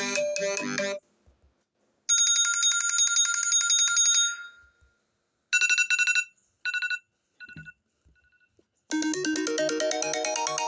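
iPhone ringtones and text tones played one after another: a melodic ringtone cuts off about a second in, a bright bell-like tone rings for about two seconds and fades, then a short chime repeats four times, fainter each time. A new melodic ringtone starts near the end.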